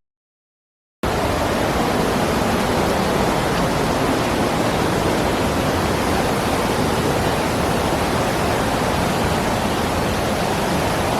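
Waterfall rushing: a steady, even roar of falling water that cuts in sharply about a second in, after a moment of dead silence.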